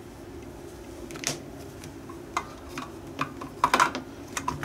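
A series of light clicks and knocks as the spot welder's cables and plastic foot pedal switch are handled and set down on its wooden board, with a steady low hum underneath.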